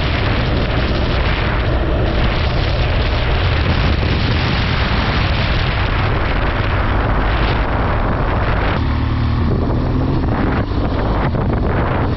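A vehicle on the move: its engine runs at a steady speed under heavy wind noise on the microphone, which eases briefly about nine seconds in.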